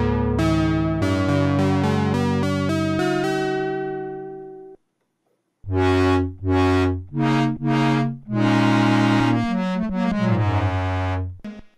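Korg minilogue four-voice analogue polyphonic synthesizer played from its keyboard. A bright keyboard patch plays chords and melody notes over held bass notes, then fades out about four and a half seconds in. After a short silence a second patch comes in with short chord stabs, one longer held chord and then quicker notes.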